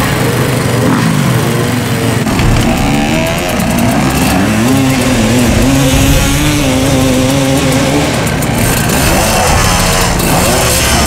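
Dirt bike engines revving unevenly, the pitch rising and falling again and again, as the bikes labour to drive through deep mud.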